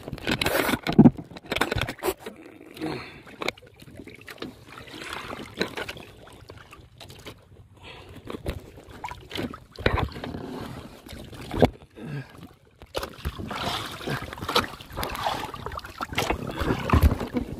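Sea water splashing and sloshing against the side of a small boat, with scattered knocks, while the line to a speared barracuda is hauled in. The splashing grows louder and busier over the last few seconds as the fish nears the surface.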